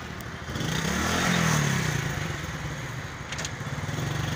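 A motor vehicle's engine passes close by, growing louder to a peak about a second and a half in and then fading, over the steady hum of road traffic.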